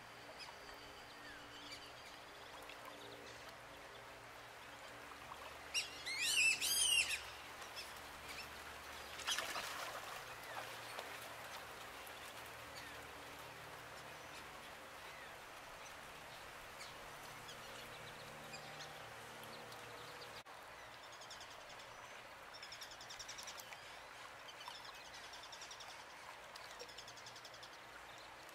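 A bird gives a loud, quick run of high whistled notes about six seconds in, then a shorter call a few seconds later. Faint high chirps come and go near the end over a steady low background.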